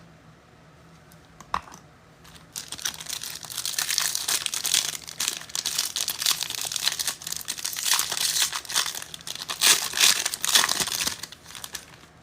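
Foil wrapper of a trading-card pack being torn open and crinkled, a dense rustling that starts after a single click near the beginning and runs on for several seconds.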